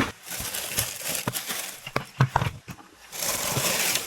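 Hard knocks and clacks of chopped firewood pieces being handled and set down, then a scraping rustle about three seconds in.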